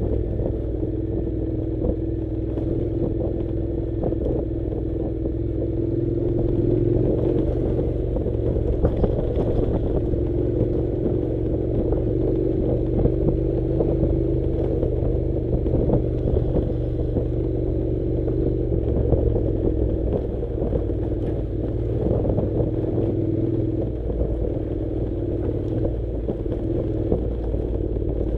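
Honda NC700's parallel-twin engine running steadily at low speed, its note wavering only slightly, with frequent small clicks and rattles from riding over a rough dirt track.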